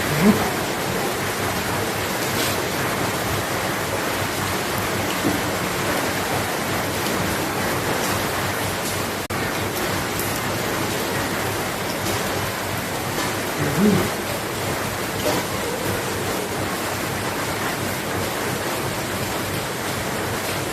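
Steady hiss of background noise, with a brief faint voice sound about 14 seconds in.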